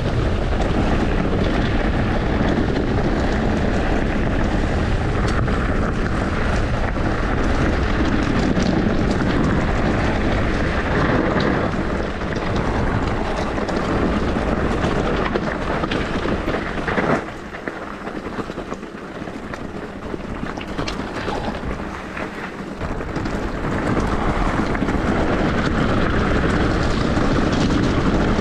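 Steady rush of wind on the microphone mixed with the riding noise of an e-bike going downhill. It drops sharply about two-thirds of the way through and builds back up a few seconds later.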